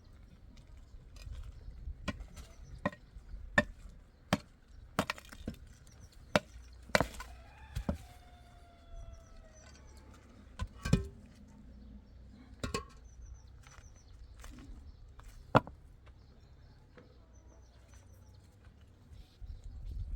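Irregular sharp knocks of tool strikes, about a dozen spread unevenly, some in quick pairs. About seven seconds in, a drawn-out animal call falls in pitch over a second or two, and there are small high bird chirps.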